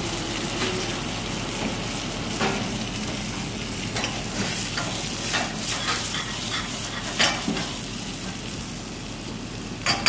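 White sauce sizzling in a hot frying pan of garlic butter on a gas burner, with a metal ladle stirring and clinking against the pan several times.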